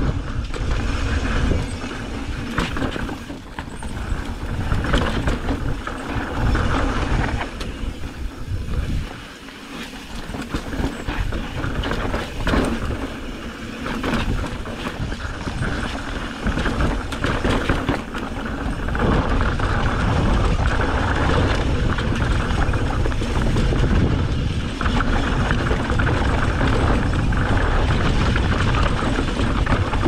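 Wind buffeting an action camera's microphone as a mountain bike descends fast, with the tyres crunching over dirt and rock and the bike rattling over bumps. The noise eases briefly about a third of the way through.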